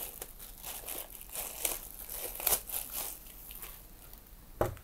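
Clear plastic wrapping crinkling and rustling in irregular handfuls as it is pulled off a metal mini PC. A single short knock sounds near the end.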